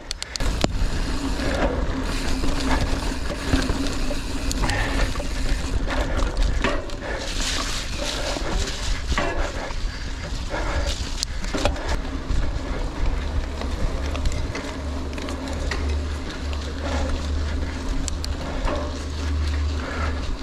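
A mountain bike ridden fast along a forest trail, with wind buffeting the on-bike camera's microphone, tyre noise and the bike rattling and knocking over bumps. The wind rumble grows heavier about two-thirds of the way through.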